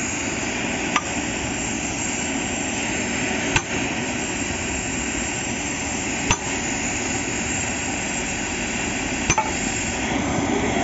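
Gas welding torch hissing steadily while its flame plays on a borewell drilling machine adapter. Four sharp knocks come at intervals of about three seconds.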